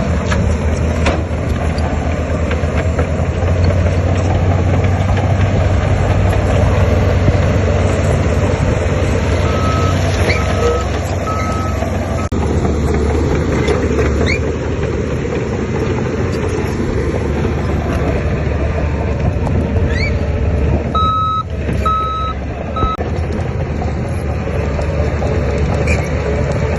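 Heavy diesel earthmoving machinery, a bulldozer and dump trucks, running steadily under load. A reversing alarm beeps in two short runs of about three beeps, near the middle and again about three quarters of the way through.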